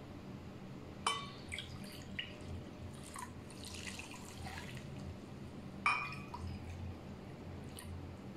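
Kitchen utensils clinking against a bowl or glass: two sharp ringing clinks, about a second in and near six seconds, with a few lighter taps and a soft hiss of something being poured in between.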